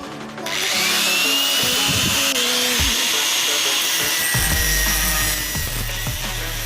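Electric grinder working the steel of an old saw blade, cutting in suddenly about half a second in and running steadily with a high whine in its hiss.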